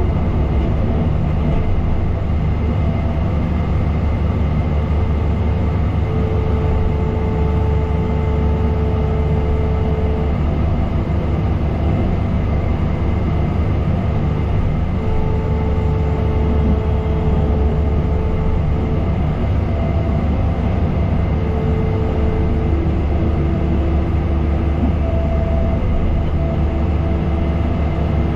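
Heavy diesel construction machine engine running steadily under work, with a higher whine that comes and goes several times.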